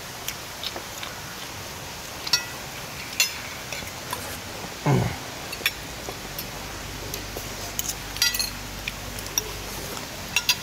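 Spoons and forks clinking and scraping on ceramic plates now and then during a meal, with a brief falling hum about five seconds in.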